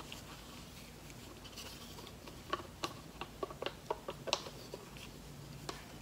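Plastic cups clicking and tapping lightly against each other as thick acrylic paint is poured from a small cup into a larger one: faint, irregular clicks, most of them in the second half.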